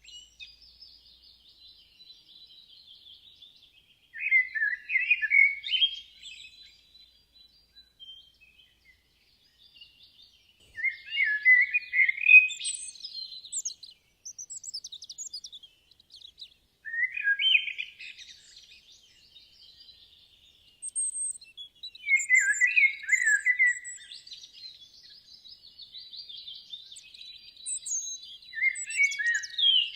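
Songbirds singing: a loud warbling phrase of about two seconds, repeated roughly every six seconds, with fainter high chirps and twittering between the phrases.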